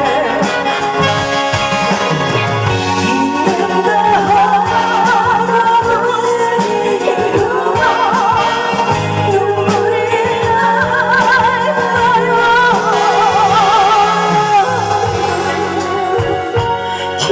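A singer holding long notes with wide vibrato over instrumental backing music, a live vocal performance of a Korean ballad.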